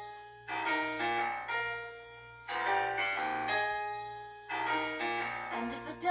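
Solo piano playing the intro of a pop song: chords struck about once a second, each ringing and fading before the next.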